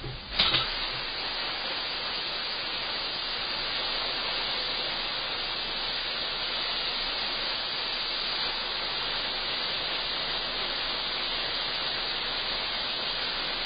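LMS Stanier Mogul steam locomotive No. 2968 standing at the platform, hissing steam steadily. A short knock comes about half a second in.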